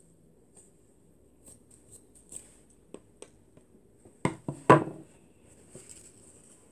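Faint rustling and small handling clicks, then a quick cluster of three or four loud knocks and rubs right at the microphone a little past four seconds in, as the recording device is touched or bumped.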